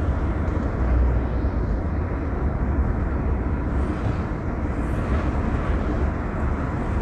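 Steady road and engine noise heard from inside a car cruising at highway speed, about 80 km/h, dominated by a deep low rumble.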